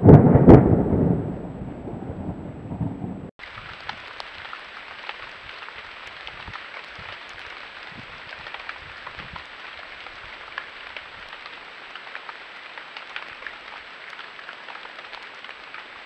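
Steady rain pattering, with many small crackling drops. Before it, in the first three seconds, a loud low rumble that cuts off abruptly.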